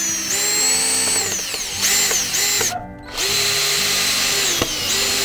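Power drill running in three bursts, its motor whine rising in pitch as it spins up and falling as it slows, with short pauses a little under two seconds in and around three seconds in.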